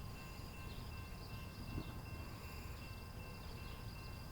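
Faint outdoor ambience: insects chirping in a steady repeating pattern, with a low steady rumble and a few faint steady high tones underneath.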